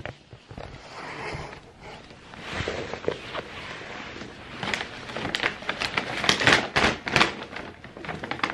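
Brown paper takeout bag rustling and crinkling as it is handled and opened, with a run of sharp crinkles in the middle.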